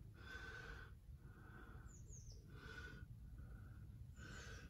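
Near silence: soft breaths close to the microphone, with a few faint high chirps in the background.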